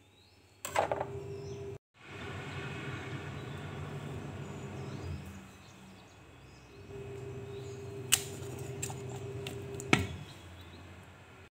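A steady mechanical hum with a few sharp clicks and knocks: one under a second in, one about eight seconds in, and the loudest about ten seconds in. The sound cuts out briefly near two seconds in.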